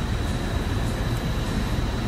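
Helicopter engine and rotor noise heard inside the cabin in flight: a steady, heavy drone with a thin, steady high whine above it.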